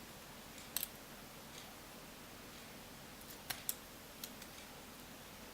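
A few light, sharp clicks of small repair tools on an iPhone 5's internal parts and connectors as its display cables are lifted: one about a second in, then two in quick succession about three and a half seconds in, and a couple of fainter ticks after.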